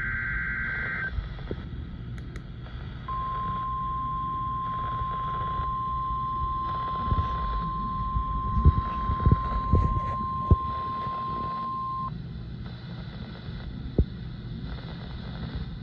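A NOAA Weather Radio receiver's speaker plays the last of a warbling digital EAS data burst for about a second. After a pause of about two seconds comes the steady single-pitch warning alarm tone for about nine seconds, sent as the weekly required test of the alarm. A few faint knocks sound during the tone and one near the end.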